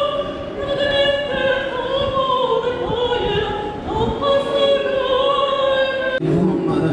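A woman busker singing in an operatic style, holding long notes with vibrato, her voice echoing off the stone walls of a square.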